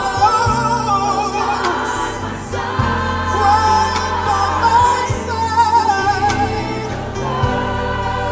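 Live gospel worship music: a lead singer and choir singing sustained notes with vibrato over a band with guitar, keyboard, violins and a steady bass line.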